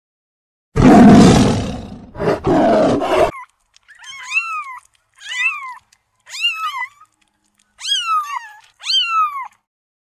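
A tiger roaring loudly about a second in, then young kittens mewing five times in high, rising-then-falling calls.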